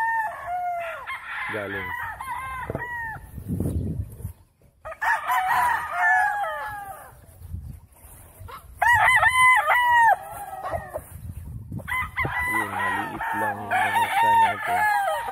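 Several Kelso-line gamecocks crowing in turn and overlapping, in four bouts, the loudest crow about nine seconds in.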